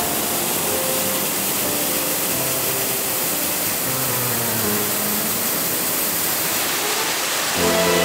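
Steady rushing of the Nametsu Great Falls waterfall, mixed with soft background music; the music grows louder and fuller near the end.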